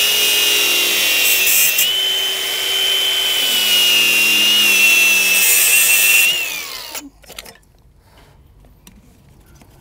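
A power tool cutting into an air suspension strut, running with a steady high whine for about six seconds, then spinning down with a falling pitch. Small clicks of handling follow.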